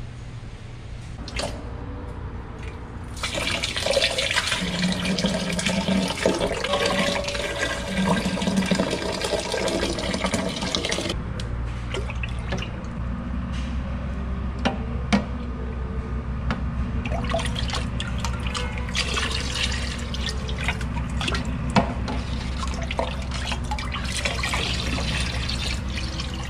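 A metal ladle stirring and scooping a cold drink in a steel pot: liquid sloshing and pouring back from the ladle, with occasional clinks of metal on metal.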